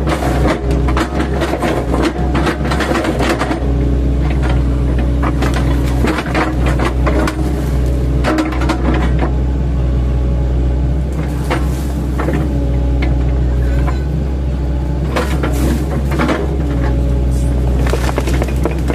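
An 8-ton-class mini excavator's diesel engine runs steadily under load, with repeated knocks and cracks as its bucket, fitted with chipping blades, chops oil palm trunks. The knocks are busiest at the start and again near the end.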